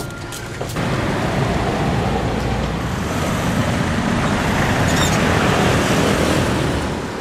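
Busy road traffic: a dense wash of passing vehicles that starts abruptly about a second in, swells in the middle and eases off near the end.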